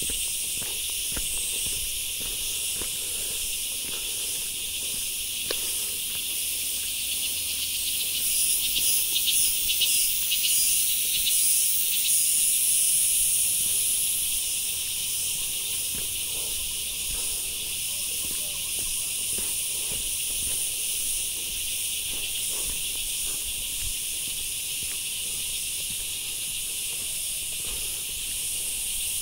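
Steady, high-pitched chorus of cicadas in the trees, swelling louder for several seconds around the middle with a fluttering pulse. Soft footsteps on a dirt path sound beneath it.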